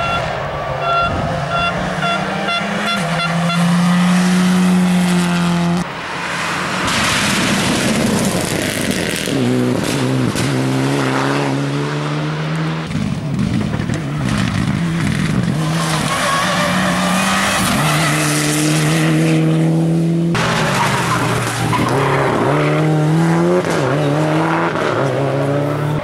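Rally cars driven hard on a gravel stage, engines revving up and dropping back through gear changes as they pass. The sound changes abruptly three times, about 6, 13 and 20 seconds in.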